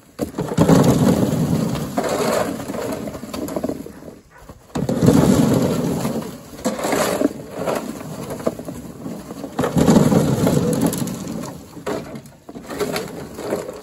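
Corn being dumped from a crib down a wooden chute into a sack: three separate rushes of rattling, tumbling corn, each lasting two to three seconds, with clicks from kernels and ears knocking.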